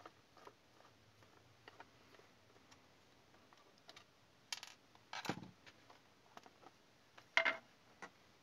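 Faint small clicks of a screwdriver working the last screw out of a plastic digital multimeter case, then a few louder plastic clacks as the back cover is pulled off, about four and a half, five, and seven and a half seconds in.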